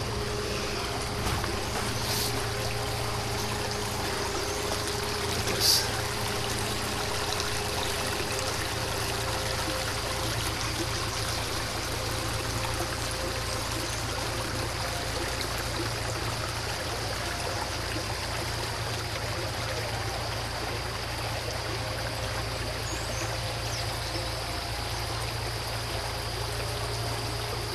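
Steady rush of flowing water, an even hiss without letup, with a faint steady high-pitched tone running over it.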